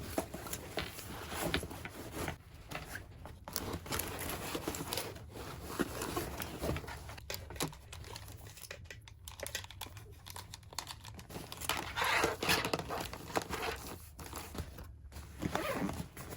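Crinkling and rustling of packaging being handled and torn open, in irregular bursts, louder for a moment about three-quarters of the way through.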